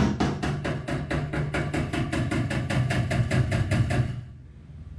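Rapid, even hammer taps on the Toyota Tundra's dented sheet-metal side panel, about seven a second, stopping about four seconds in: panel-beating to work the dent out.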